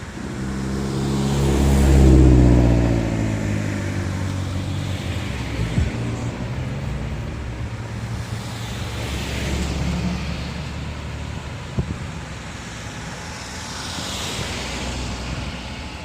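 Motor vehicle engines running. One swells loudest about two seconds in and falls in pitch as it fades, and smaller swells come around ten and fifteen seconds in. A couple of sharp knocks sound near six and twelve seconds.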